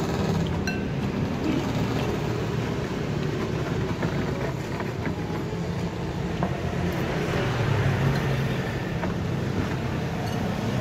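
Steady rumble of road traffic going past, swelling slightly near the end, with a few faint clinks of a metal spoon and fork on a bowl.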